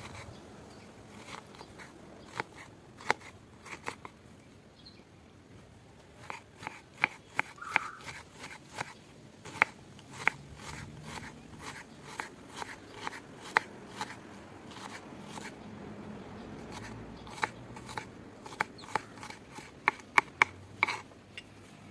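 Kitchen knife chopping an onion on a wooden cutting board: sharp, irregular knocks of the blade striking the board, coming in quick runs, densest about a third of the way in and near the end.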